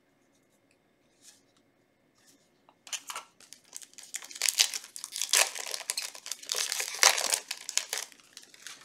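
A foil Yu-Gi-Oh booster pack wrapper being torn open and crinkled, a dense crackling that starts about three seconds in and runs for about five seconds.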